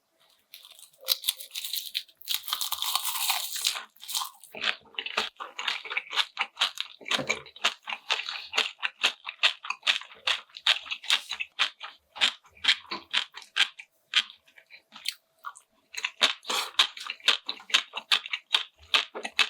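Close-miked mukbang eating: a person chewing food with rapid, crisp crunching. A longer rush of noise runs from about one to four seconds in.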